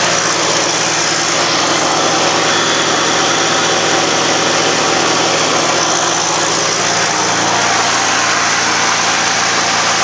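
Engine idling steadily, a sound the owner suspects comes from a spun bearing.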